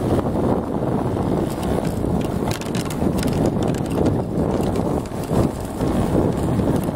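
Yamaha Mate moped's engine running steadily while riding, mixed with wind buffeting the microphone and a few short knocks and rattles.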